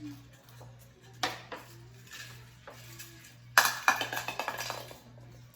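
Dishes and metal utensils clinking and clattering in a kitchen: one sharp clink, then a longer burst of clattering about three and a half seconds in.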